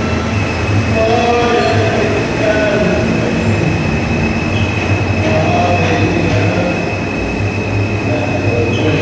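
Subway maintenance train rolling slowly along the tunnel track: a steady low rumble of wheels on rail with a high, sustained wheel squeal over it.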